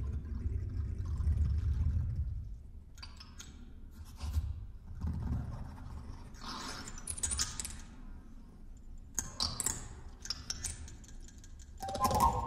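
Experimental kalimba and live-electronics music. A low electronic rumble fades out after about two seconds and gives way to scattered rattling and scraping noises made on the kalimba. Near the end a louder strike sets off a ringing note.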